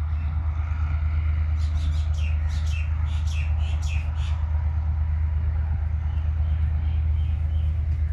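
A bird calling in a quick run of sharp chirps from about two to four seconds in, then a few fainter calls, over a steady low rumble.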